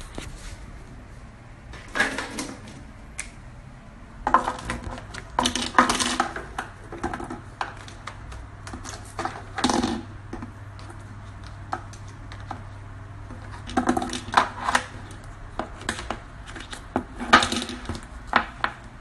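Irregular clusters of light clicks and clatters a few seconds apart, over a faint steady low hum.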